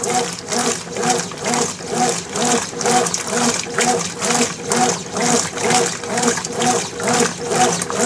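Consul CWB09AB 9 kg top-load washing machine agitating a drum of water with no clothes in it. The agitator reverses about twice a second, each stroke a rising-and-falling motor whir with a swish of water. This is the fast agitation stroke of its very-dirty-whites cycle.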